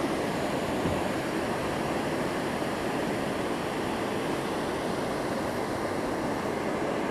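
Steady rush of water pouring over a large river spillway, an even roar with no breaks.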